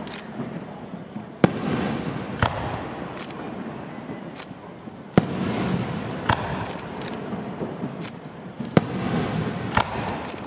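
Aerial firework shells bursting overhead: sharp bangs about once a second, the loudest about a second and a half, five and nine seconds in, each followed by a rumbling spread of noise.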